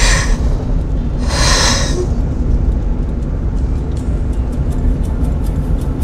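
Steady low road rumble inside a moving car's cabin, with a woman's short tearful sniff about a second and a half in.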